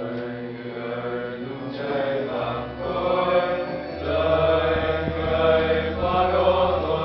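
Male voices singing a liturgical chant together, in slow held notes, growing louder about four seconds in.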